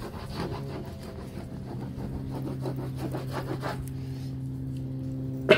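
Lop-eared rabbits nibbling and rustling among dry plant stalks and soil, a quick run of fine rasping strokes about five or six a second that fades out after about three and a half seconds, over a steady low hum. A single sharp click near the end.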